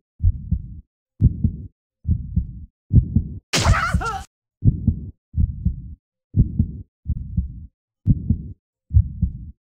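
Heartbeat sound effect: low, muffled thumps in double 'lub-dub' beats, a little faster than one a second, with dead silence between them. A brief voice-like shout cuts in about three and a half seconds in.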